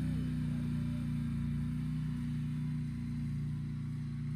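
Polaris Sportsman Touring 1000 XP ATV's twin-cylinder engine running steadily at low speed as the quad drives away, growing slightly fainter.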